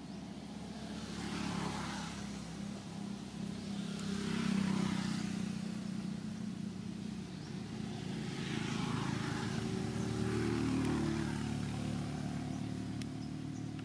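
Motor vehicle engine noise, a steady low hum that swells and fades about four times as vehicles pass.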